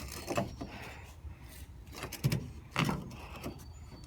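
A few clunks and knocks of parts being handled and set back in place, the two loudest close together just past the middle.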